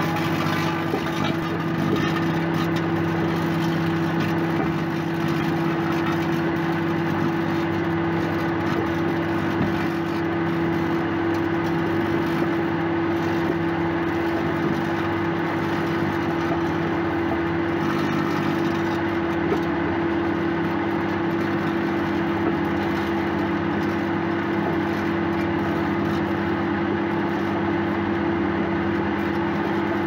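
Microwave oven running with a steady, loud hum while steel wool on its turntable sparks and burns inside, with continual fine crackling.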